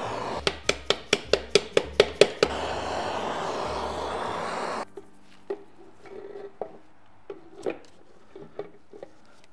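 Handheld gas torch flame hissing steadily as it heats the aluminium gearbox case around the bearing bore, so the bearing can slip in. A quick run of about ten sharp clicks comes in the first couple of seconds. The hiss cuts off suddenly about halfway through, followed by light metal clinks as the bearing and differential are set into the warmed case.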